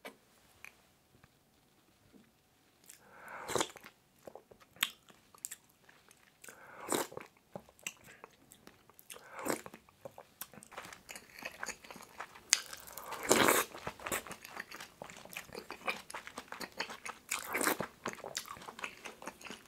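Close-miked eating sounds of pork kimchi stew: crunchy biting and chewing in quick, irregular bursts. It starts after about three nearly quiet seconds and grows busier toward the end.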